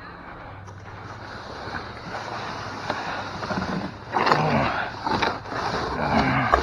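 Steady rushing noise, like wind on the microphone, with distant voices calling out briefly about four seconds in and again near the end.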